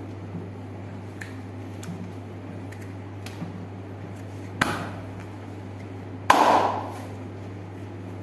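Two sharp smacks a little under two seconds apart, the second louder with a brief ring after it, over a steady low hum.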